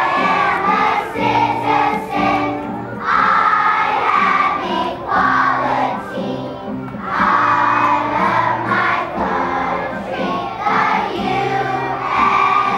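A large children's choir singing a patriotic song in phrases over an instrumental accompaniment.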